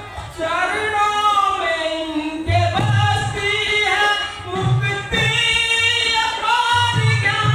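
A single voice singing long, wavering notes of a folk-drama song, over accompaniment with low beats every couple of seconds.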